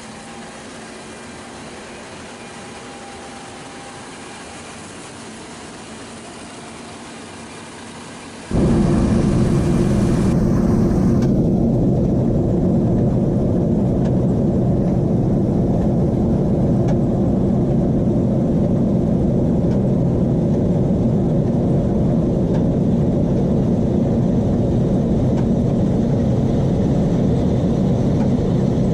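John Deere T670i combine harvester running steadily while cutting wheat. About eight seconds in, the sound jumps much louder to a heavy, steady low rumble.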